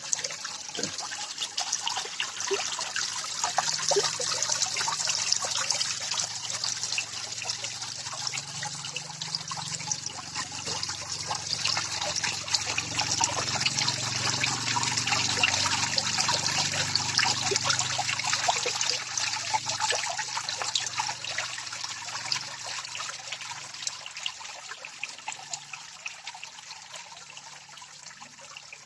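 Water from a small garden-pond waterfall trickling and splashing steadily into the pond, with many small splashes, getting quieter over the last few seconds.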